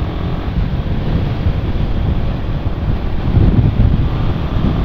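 Strong wind buffeting the microphone of a rider on a moving motorcycle, a dense low rumble that swells a little past the middle, with the bike's running and road noise under it.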